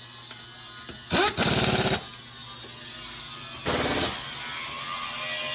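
Pneumatic impact wrench rattling in three short bursts: two close together about a second in, the second lasting about half a second, and another near the four-second mark.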